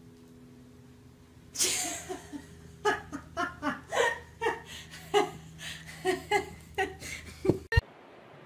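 A person laughing: a sharp breathy outburst about a second and a half in, then a run of short laughing bursts, a few a second, that cut off abruptly near the end. A faint steady hum lies underneath.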